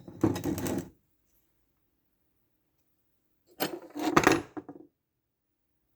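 Small metal parts clinking and rattling as they are handled, in two short bursts about a second long each, the second a little past the middle.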